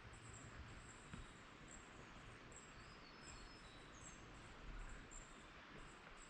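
Quiet forest ambience: faint, high-pitched chirping that repeats irregularly throughout, with a few thin whistled notes around three to four seconds in.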